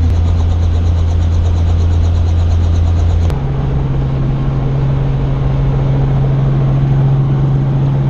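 Robinson R44 Raven II helicopter heard from inside its cabin, the piston engine and rotor running with a loud, steady drone. About three seconds in the sound cuts abruptly to a steady, higher-pitched drone.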